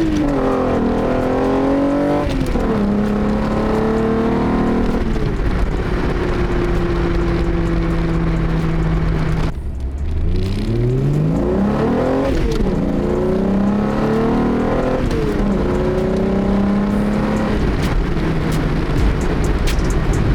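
VW VR6 engine accelerating hard through the gears. Its note rises and then drops at each upshift, about five times. About ten seconds in there is a brief lift-off before it pulls up again.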